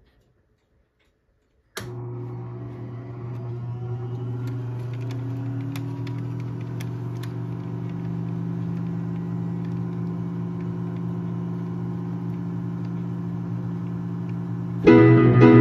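Player piano mechanism starting up: a steady hum from its vacuum pump and roll drive starts suddenly about two seconds in, with a few light clicks. Near the end the piano starts playing the roll's first notes.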